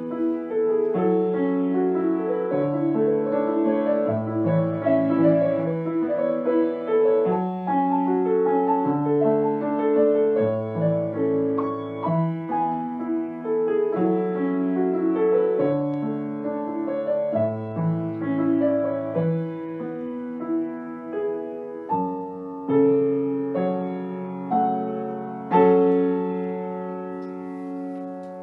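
Grand piano played solo in sustained notes and chords, growing gradually quieter. It ends with a final chord near the end that is left to ring and fade.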